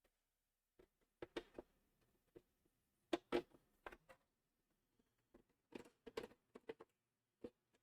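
Scattered light clicks and knocks of an Apple III floppy drive's parts being handled, in small irregular clusters, the loudest pair about three seconds in.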